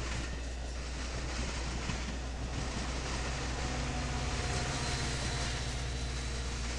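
Metra commuter train passing close by: a steady rumble and clatter of the bilevel coaches' wheels on the rails. About halfway through, a diesel locomotive's engine drone comes in as the train's end goes by.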